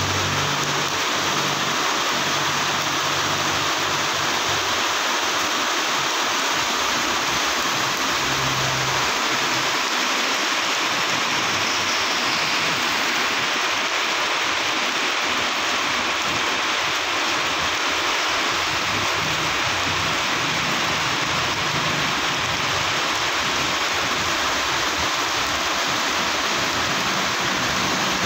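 Heavy tropical rain pouring onto paving blocks and puddles, a steady, even hiss of splashing. A low rumble of passing road traffic comes and goes under it a few times.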